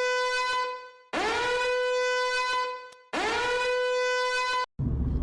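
A horn blown in long, held notes at one pitch, each scooping up into the note: the tail of one blast, then two more blasts of about two seconds each, cut off abruptly near the end.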